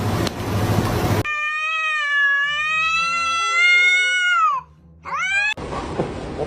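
A cat's long, drawn-out meow that drops in pitch at the end, followed by a short rising meow, after about a second of steady background noise.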